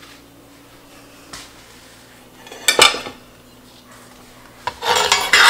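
Metal utensils against a cast-iron Dutch oven: a single sharp clank about halfway through, then a metal serving spoon scraping and clattering in the pot near the end as it scoops.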